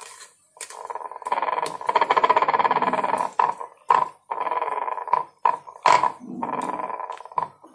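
Wooden rolling pin rolling out an oiled ball of dough on a round rolling board: a rumbling, grinding sound in several strokes of one to three seconds each, with sharp knocks between them.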